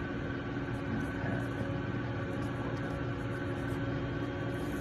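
Steady background machine hum, a low drone with a few constant tones, with faint scratching of a pencil writing on paper.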